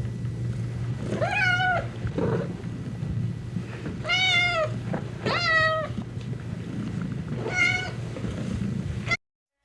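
A domestic cat meowing four times, each meow an arched call that rises and falls in pitch, over a low steady hum. The sound cuts to dead silence just before the end.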